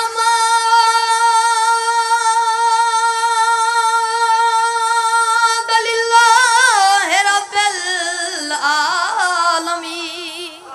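A boy's high, unbroken voice singing through a microphone: one long steady note held for about six seconds, then quavering ornaments that step down in pitch and fade near the end. It is the sung part of a zakir's majlis recitation.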